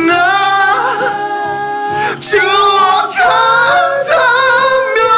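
A voice singing long held, wavering notes over music, in a few phrases with short breaks between them.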